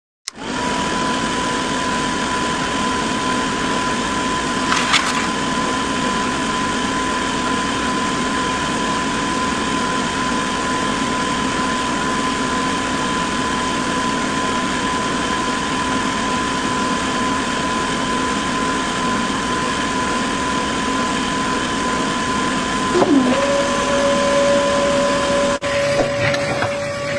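A small electric motor whirring steadily with a high, even whine. Near the end its pitch drops and settles on a lower tone, then the sound cuts to something busier.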